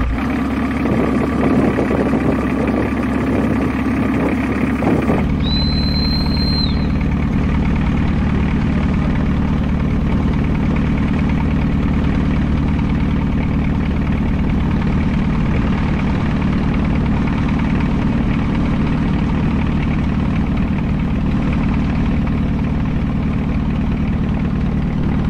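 Boat engine running steadily under way. About five seconds in the sound changes abruptly to a steadier, lower engine hum, and a brief high whistle-like tone follows.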